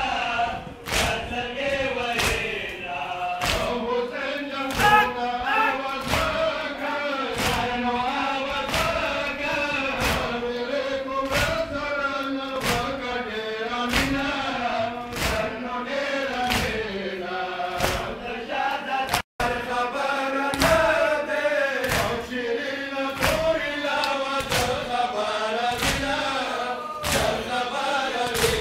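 Men chanting a Pashto noha (Shia lament for Karbala) in unison, with the flat-hand slaps of chest-beating matam striking in time with it as a steady beat, about one and a half slaps a second.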